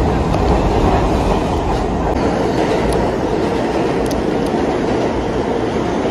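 Die-cast toy subway cars rolling along wooden toy track, pushed by hand: a continuous rolling rumble with a few faint clicks as the wheels cross track joints.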